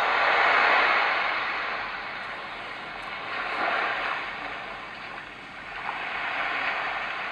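Three Sheep S1 sound machine playing a surf-like noise track: a steady hiss that swells and ebbs about every three seconds, like waves breaking.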